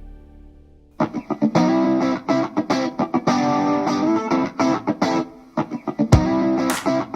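Rock music with choppy electric guitar playing through KEF LS50 Meta bookshelf speakers, starting suddenly about a second in after a faint fading tail of earlier music.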